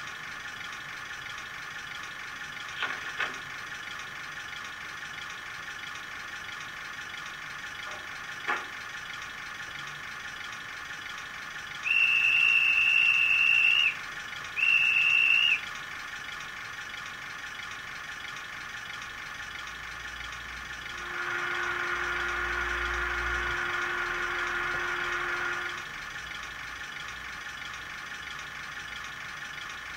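Recorded diesel idle of a Ruston 48DS shunter sound decoder, played through the model's small speaker, running steadily with a few short clicks early on. A guard's whistle then sounds twice from the same speaker, a long blast followed by a short one, and is the loudest sound. Later another effect plays for about five seconds, a steady lower tone over the idle.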